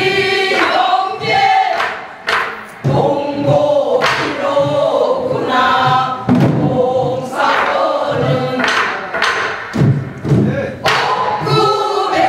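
Korean traditional folk singing, long held and wavering sung notes, with sharp percussion strokes at irregular intervals.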